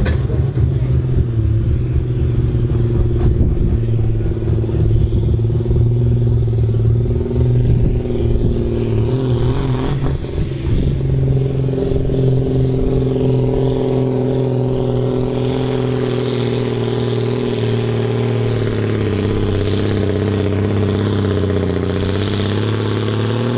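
John Deere 4240S tractor's diesel engine running hard under load while pulling a sled. It makes a steady, loud drone that sags slightly in pitch over the last few seconds.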